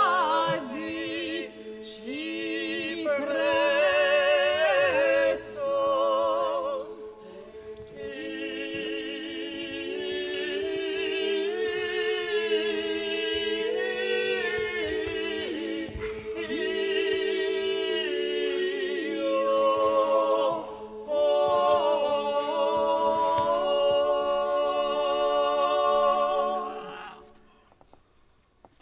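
Music: singing with a wavering vibrato over a steady held drone. It fades out near the end.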